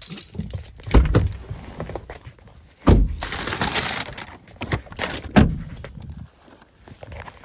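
Car keys jingling at the ignition and rustling of the phone in hand while getting out of a car, with three heavy thunks about one, three and five and a half seconds in.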